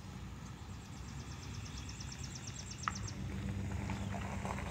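A small bird sings a rapid trill of high, evenly spaced notes that stops about three seconds in, over a steady low rumble that grows a little louder near the end.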